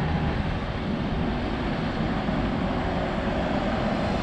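Mercedes-Benz coach approaching along the road, its engine and tyre noise growing a little louder near the end, over a steady wash of traffic noise and wind on the microphone.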